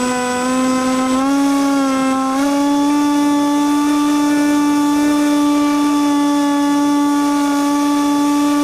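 RC model airplane's motor and propeller, heard from a camera mounted on the plane, running as a steady high-pitched drone. Its pitch steps up slightly twice in the first few seconds as the throttle rises, then holds steady.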